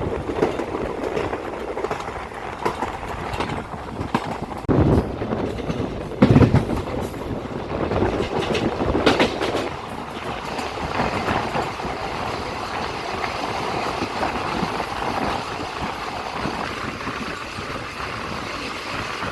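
Passenger train running on the track: a steady rumble with the clatter of wheels over the rails, and a couple of louder knocks about five and six seconds in.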